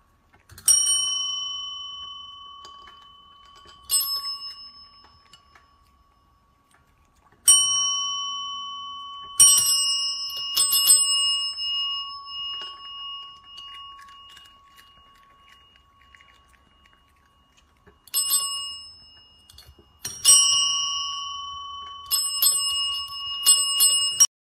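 Chrome tap-top service bells (desk bells) struck by cats' paws, about ten clear dings at uneven intervals, each ringing out slowly, with a quick run of strikes near the end that cuts off suddenly. The cats ring the bells to ask for treats.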